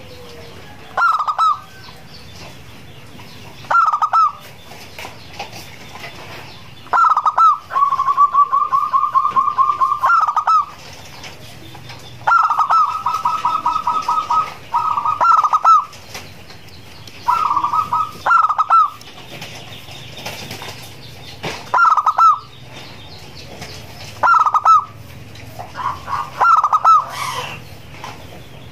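Zebra dove (perkutut) singing: cooing phrases repeated every few seconds, several drawn out into a rapid run of short staccato notes lasting two to three seconds.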